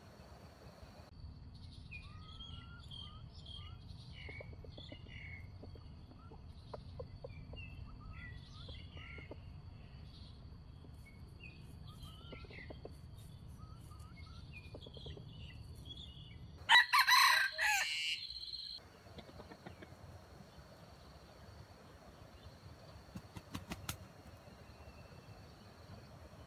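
A rooster crows once, loud and about two seconds long, a little past the middle. Before it come many soft, scattered chirps and clucks, and a few faint clicks follow near the end.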